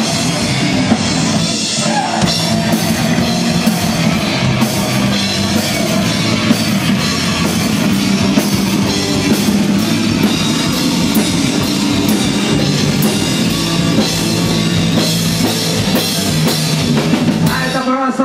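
Live rock band playing loud and hard: electric guitar over a driving drum kit, with no singing in this passage.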